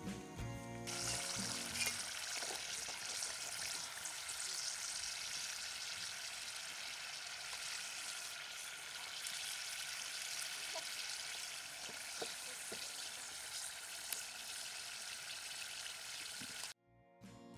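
Sweet potato wedges deep-frying in a pot of hot oil: a steady sizzle with occasional small pops, cutting off suddenly near the end.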